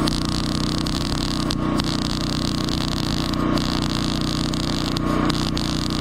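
A wire-feed (MIG) welding arc crackling and hissing steadily as a bead is run along a steel pipe fence joint. The arc cuts out briefly three times, about a second and a half to two seconds apart. Under it runs a steady engine hum.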